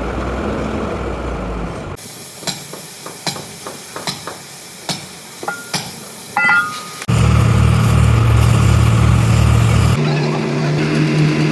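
A large engine running with a low rumble, broken by a few seconds of sharp, separate knocks and a brief high squeal. Then the loud engine sound returns.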